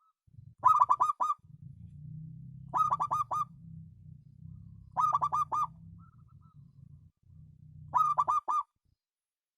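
Zebra dove (perkutut) cooing four times, each call a quick run of about five clipped notes. A low hum runs underneath the calls.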